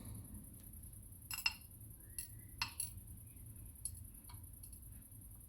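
Small metal pins from a dimple lock's core clinking against metal as they are taken out and handled: about seven irregular light clinks with a short ring, the loudest about a second and a half in.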